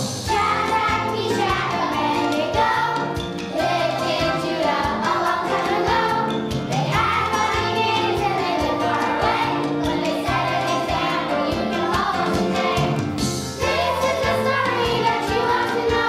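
A children's choir singing a song over instrumental accompaniment with a steady beat.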